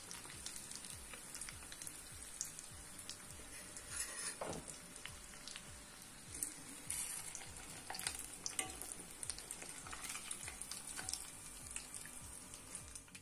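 Breadcrumb-coated potato cheese balls deep-frying in hot oil: a steady sizzle with frequent crackles and pops, as a metal spoon turns the balls in the pan.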